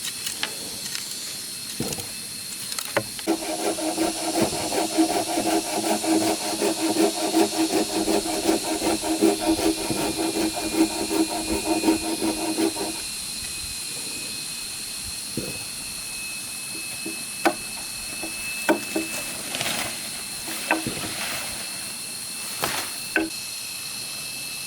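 Bamboo being sawn in quick rasping strokes for about ten seconds, then stopping, followed by scattered sharp knocks of bamboo being handled.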